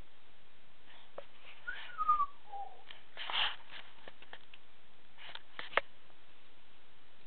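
A person whistles a short falling phrase about two seconds in, then there is a breathy noise and, a little later, a few light sharp clicks.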